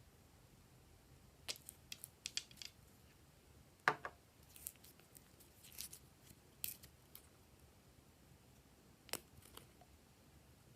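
Scattered short, sharp clicks and snips from small objects being handled, about a dozen over the stretch, with the sharpest about four seconds in.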